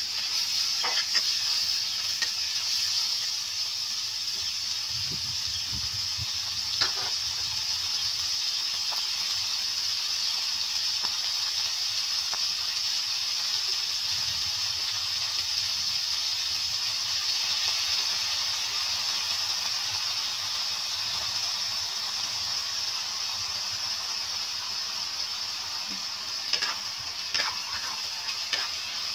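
Beef cubes and chopped garlic sizzling in oil in a nonstick frying pan, a steady frying hiss. A metal spatula scrapes and taps against the pan as the meat is stirred, a few times near the start, once about seven seconds in, and again near the end.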